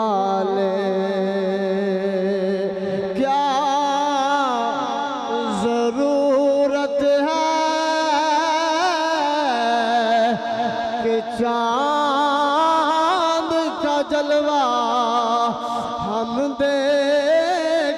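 A man singing a devotional Urdu naat in long, drawn-out melismatic notes, the pitch wavering and sliding from note to note with no clear words.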